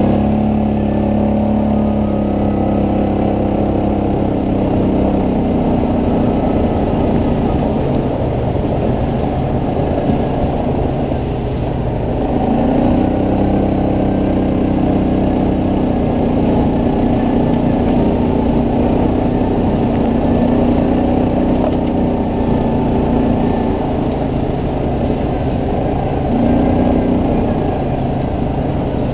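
ATV engine running under way, its pitch rising and falling with the throttle; it eases off about eleven seconds in and picks up again soon after, over a steady low rumble.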